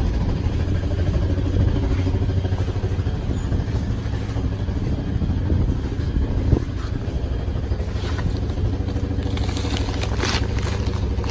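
Quad bike (ATV) engine running at idle, a steady low drone. From about nine seconds in, a rushing hiss joins it.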